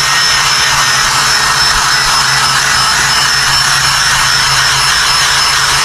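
Steady, loud hissing whir of a machine running, with a faint high whine, unchanged throughout.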